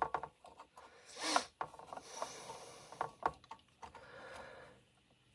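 Workbench handling sounds: a few light clicks and knocks with soft rubbing and scraping as tools and the circuit board are moved about, with a short louder scrape about a second in.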